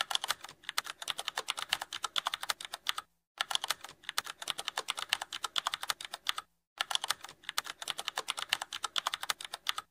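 Typing sound effect: fast, steady key clicks, broken by two brief pauses about three and six and a half seconds in.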